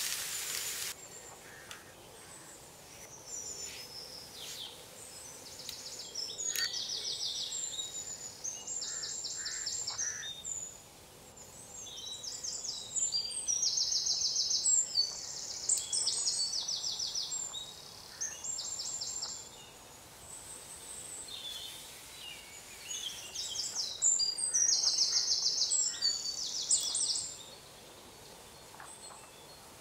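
Paper crinkling briefly at the start. Then a songbird sings phrases of fast, high trills, repeated again and again with short pauses and loudest near the end.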